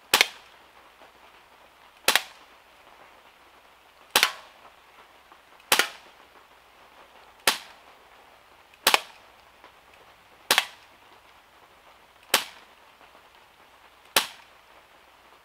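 BB pistol fired from the hip in single shots, nine sharp cracks spaced about one and a half to two seconds apart.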